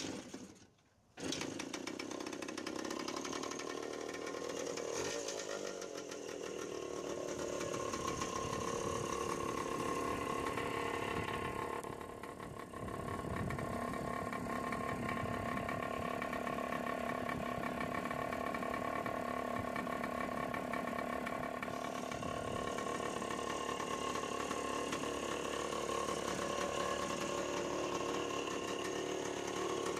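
1972 Hodaka Wombat's two-stroke single-cylinder engine catches suddenly about a second in and runs steadily with the choke just turned off. Its revs dip briefly near the middle.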